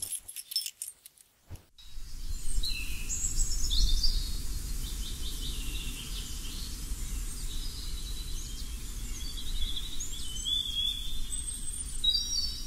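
Birds chirping and singing, with many short quick calls, over a steady low rumble of outdoor ambience. It is preceded in the first second and a half by a short run of sharp clicks or glassy strikes.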